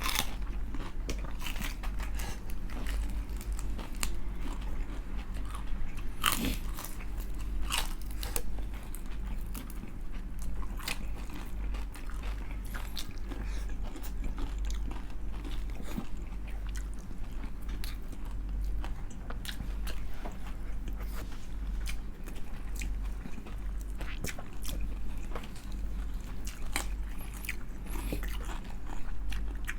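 Close-up chewing and biting of deep-fried crispy chicken skin, with many sharp crackly crunches over a steady low hum.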